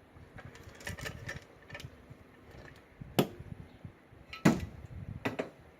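Scattered sharp clicks and knocks of small metal parts being handled, an opened padlock and lock tools being worked on as it is taken apart. The two loudest knocks come about three and four and a half seconds in.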